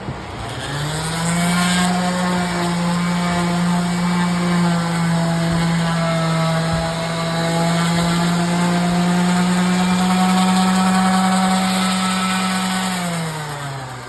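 Electric sander sanding log walls: the motor spins up about a second in, runs at a steady pitch, then winds down near the end.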